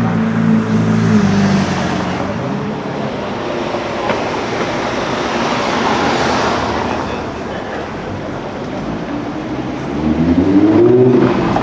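Car engine running on the street with a steady note, then mostly traffic and tyre noise swelling and fading. Near the end an engine revs up, its pitch rising as it accelerates.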